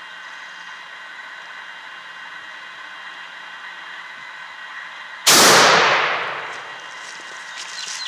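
A single shotgun blast from a Stoeger 3000 firing a No. 2 shot shell, about five seconds in, ringing out and dying away over about a second.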